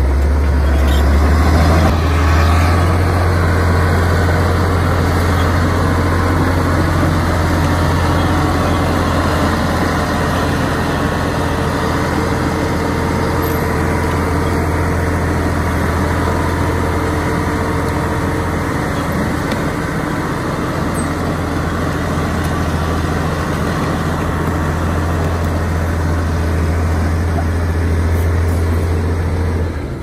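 Heavy diesel earthmoving machinery running steadily, a bulldozer or dump truck: a deep, even engine hum with a slight swell about two seconds in.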